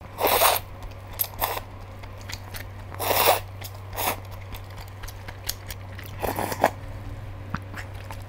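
Udon noodles slurped up off chopsticks: three longer slurps, near the start, a little after three seconds and after six seconds, and a couple of shorter ones, with soft chewing and mouth clicks between.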